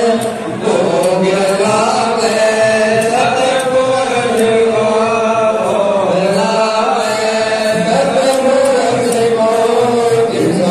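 Devotional chanting set to music, sung without a break in a slowly rising and falling melody.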